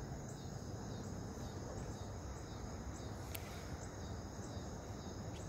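Crickets trilling in a steady chorus of several overlapping high tones over a low steady background rumble. A single sharp click comes a little past halfway.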